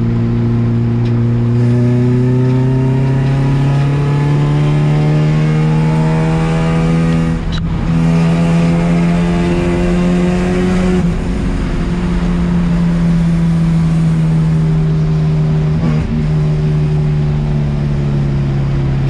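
Supercharged Honda Civic four-cylinder engine under steady acceleration, its pitch climbing slowly through the revs for about ten seconds with a brief dip in level partway, then easing gradually down as it backs off.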